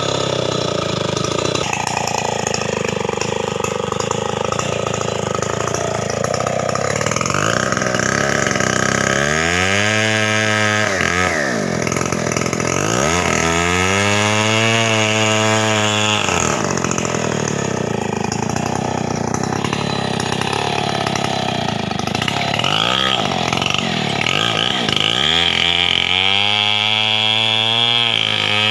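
Stihl 070 two-stroke chainsaw running continuously as it cuts into the base of a gmelina tree trunk.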